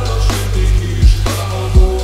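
Drum and bass track: a fast kick-and-snare breakbeat over a heavy sustained bass and held synth tones.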